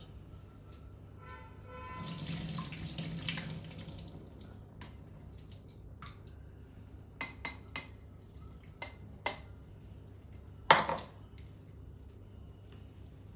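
Tap running for about two seconds, then several light knocks and clicks, with one sharper knock near the end.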